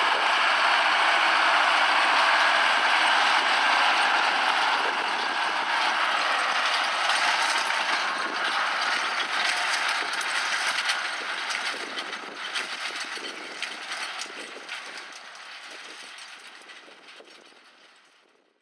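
John Deere tractor running while towing a Claas twin-rotor hay rake, the rotor tine arms rattling and clicking as they turn. The sound drops away after about eleven seconds and fades out to silence at the end.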